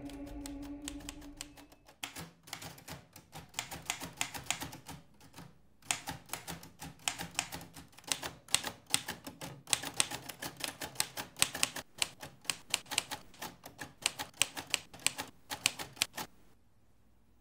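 Manual typewriter being typed on: quick runs of sharp key strikes with a short pause about six seconds in, stopping shortly before the end. A low held musical tone fades out over the first two seconds.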